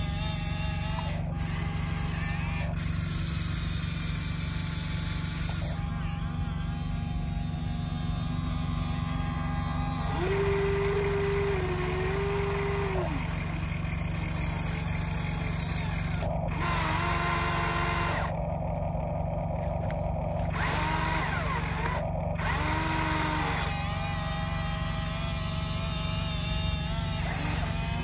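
Radio-controlled excavator's electric motors and gearboxes whining under a steady low hum, the whine changing pitch and starting and stopping in stretches as the boom, arm, bucket and swing are worked in turn while it digs and swings a load over the truck.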